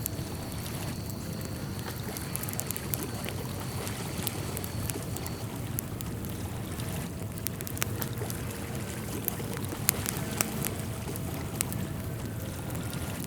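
Outdoor nature ambience: a steady rush like running water, with scattered sharp ticks and drips through it.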